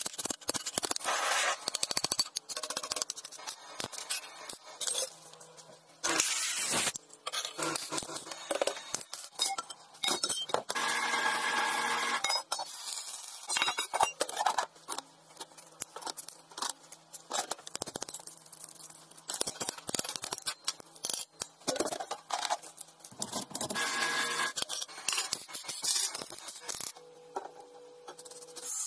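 Steel parts clinking, knocking and scraping as they are handled and worked, broken up by several short stretches of harsher, hissing noise.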